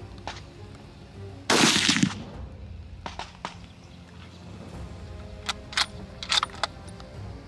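A single shot from a Mossberg Patriot bolt-action rifle in .308, about a second and a half in, the loudest sound. A few seconds later come several sharp metallic clicks as the bolt is worked to eject the case and chamber the next round.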